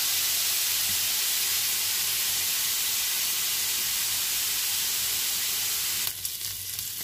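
Diced beef and chorizo sizzling in hot oil in a frying pan: a steady hiss that drops off suddenly about six seconds in, leaving a quieter crackle.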